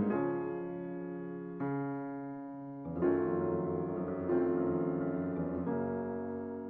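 Background piano music: slow chords struck every second or so, each fading before the next.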